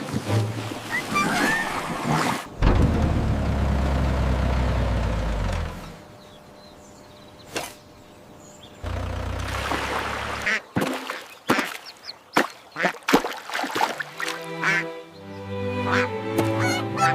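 Cartoon sound effects over a music cue: a loud rush of water pouring, then a run of short, sharp sounds with duck quacks, and the music picks up again near the end.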